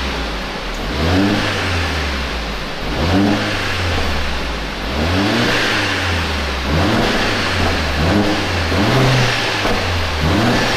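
Mercedes-AMG A45 S's turbocharged 2.0-litre four-cylinder engine, stationary in Race mode, given a series of light throttle blips: the revs rise and fall back about every one to two seconds, six times in all, kept low because the engine is brand new.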